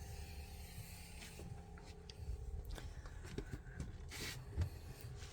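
Faint rustling, scraping and small clicks from handling things, over a low steady hum.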